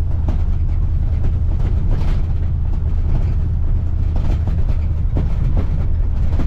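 A vehicle driving: a steady deep rumble with irregular rattles and knocks.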